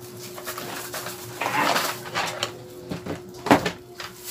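Cardboard box and plastic wrapping handled as a laptop cooling pad is pulled out of its box: rustling and crinkling, with a few clicks and one sharp knock about three and a half seconds in. A faint steady hum runs underneath.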